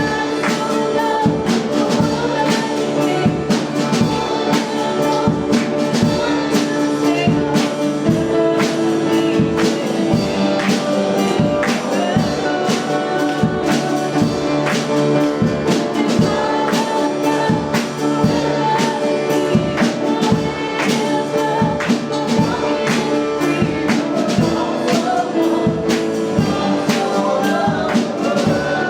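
Live worship song: piano accompaniment with singing and a steady beat.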